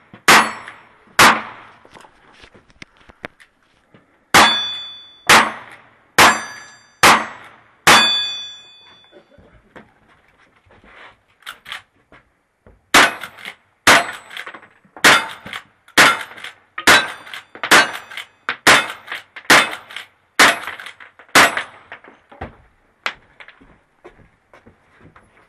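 Revolver shots at steel plate targets: two near the start, then five more about a second apart from about 4 to 8 seconds in, each followed by the ring of the struck steel. After a pause of a few seconds, a lever-action rifle fires about ten quick shots, a little under a second apart.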